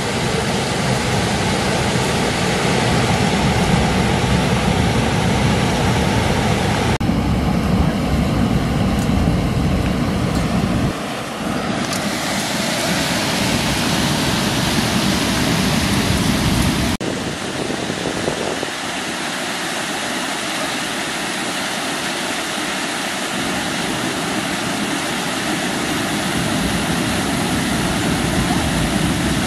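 River water pouring over a low rocky ledge as a small waterfall: a steady rushing that changes tone abruptly three times.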